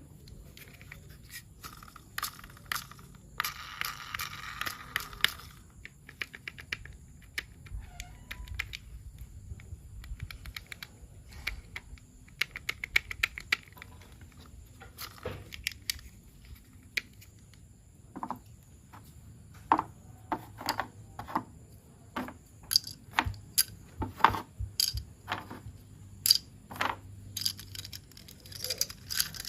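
Plastic toy train pieces and packaging being handled: a long run of scattered clicks and taps, more frequent in the second half, with two brief rustles.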